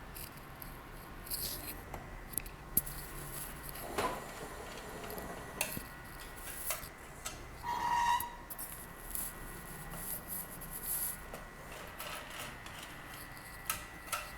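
Scraping, rubbing and light clicks of tools and plastic and metal parts being worked while a portable cylindrical speaker is unscrewed and pried apart, with a brief squeak about eight seconds in.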